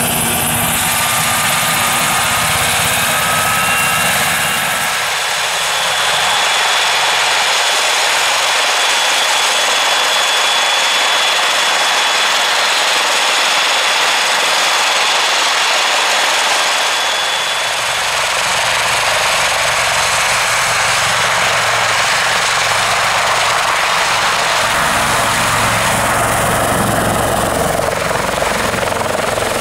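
Westland Lynx army helicopter running with its rotors turning: steady turbine whine and rotor noise, with a thin high whistle through the middle. A deeper rotor sound comes in about two-thirds of the way through as the helicopter powers up and lifts off near the end.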